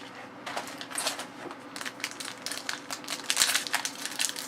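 Hockey trading cards being flipped through by hand: a quick, uneven run of light papery clicks and slides as card edges snap past one another, busiest near the end.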